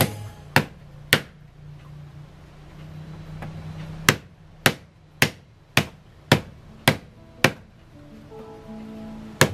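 Wooden tapa beater striking aute (paper mulberry) bark laid on a wooden block. Two blows come near the start, then a pause of about three seconds, then a steady run of blows about two a second. Faint music plays underneath.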